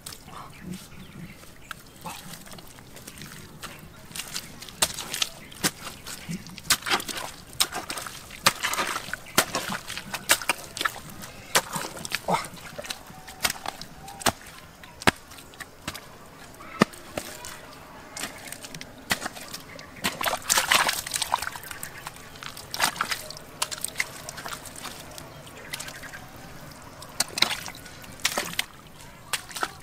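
Hands working through wet mud and shallow water: irregular sloshing and squelching with many short, sharp splashes.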